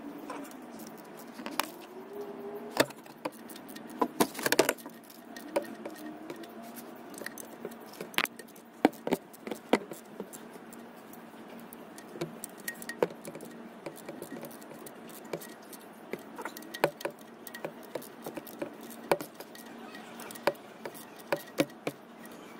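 Ratchet wrench and socket tightening transmission oil pan bolts: irregular sharp metallic clicks and clinks, some in quick clusters.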